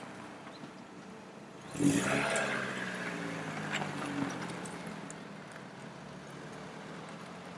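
A car driving past close by: its engine and tyre noise swell suddenly about two seconds in, then fade away.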